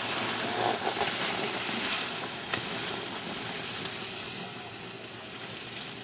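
Skis sliding over snow, with wind rushing across the microphone, making a steady hiss that slowly fades.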